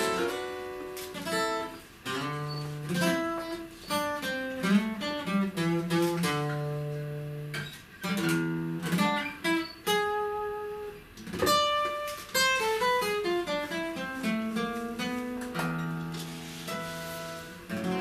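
Solo acoustic guitar playing an instrumental passage: picked notes and strummed chords ringing out one after another.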